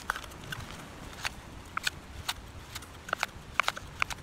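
Two thin wooden boards clacking and knocking together in sharp, irregular clicks, some in quick pairs, as a fire roll is rolled back and forth between them.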